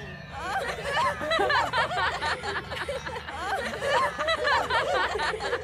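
Several voices chattering and snickering over one another, so tangled that no words can be made out.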